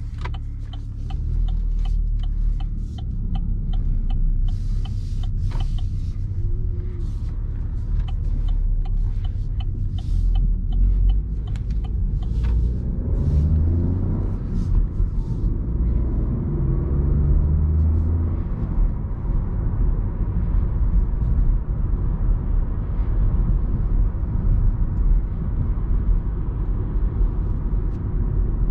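Opel Astra's 1.2-litre turbo petrol engine and road rumble heard from inside the cabin while driving. A run of short clicks fills the first half. About halfway in, the engine note rises as the car accelerates, then settles into a steady driving hum.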